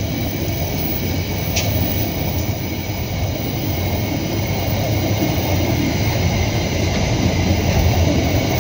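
Ballast train of GB hopper wagons rolling past: a steady rumble of steel wheels on rail, growing slightly louder, with a brief high click about one and a half seconds in.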